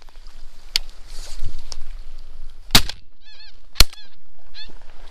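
Two shotgun shots about a second apart, each with a short echo, and a run of goose honks between and just after the shots.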